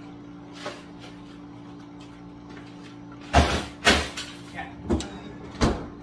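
A plastic tray of ice being loaded into a pull-out freezer drawer and the drawer slid shut: a run of sharp knocks and clunks in the second half, the first two loudest, over a steady low hum.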